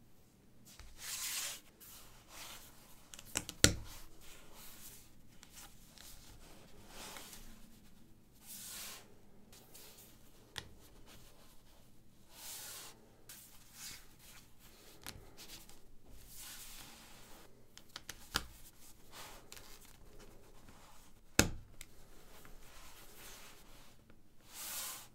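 LEGO 1x4 and 1x6 plastic plates being handled and fitted together by hand: soft rustling and sliding of the pieces, broken by a few sharp plastic clicks as plates snap on, the loudest about three and a half seconds in and again late on.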